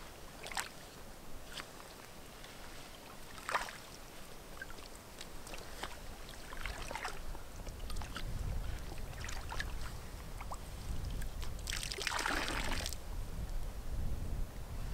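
Loch water splashing and sloshing in short bursts as a container is dipped and swished at the shoreline, with a longer, louder splash near the end. Wind rumbles on the microphone through the second half.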